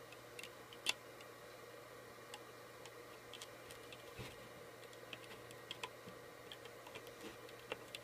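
Faint, irregular clicks and ticks of a plastic hook against the plastic pegs of a rubber-band loom as bands are hooked and flipped over, with one sharper click about a second in.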